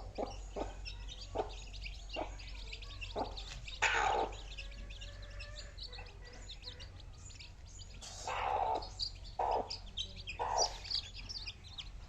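Chicks peeping in a busy chorus of short, high cheeps. There are several short taps in the first few seconds and a few louder, lower clucks from bigger chickens later on.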